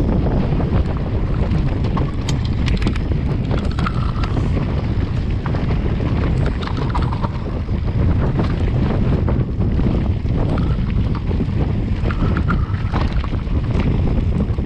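Wind buffeting a GoPro's microphone on a mountain bike riding downhill over a stony track, with scattered clicks and rattles from the bike and tyres over the stones.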